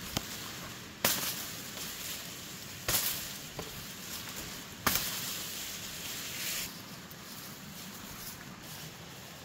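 Machete chopping through ferns and grassy undergrowth: three sharp cuts about two seconds apart, each followed by leaves rustling.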